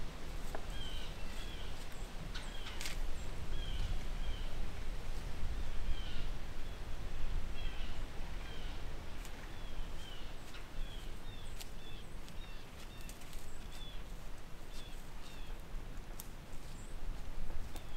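Small bird chirping over and over, short hooked chirps about once or twice a second, over a steady low rumble, with a few sharp clicks now and then.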